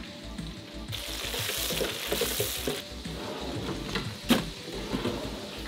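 Hot oil sizzling as battered crappie fillets fry, under background music. A louder rush of hiss starts about a second in and lasts about two seconds, and there is one sharp knock about four seconds in.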